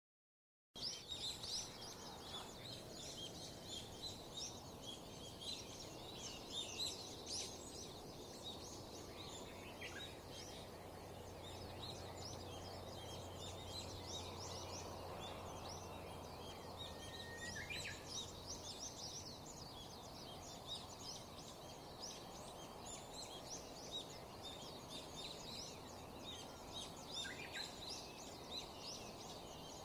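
Wild songbirds calling in a spring mountain chorus: many rapid, high chirps overlapping throughout, with a few longer whistled notes standing out now and then.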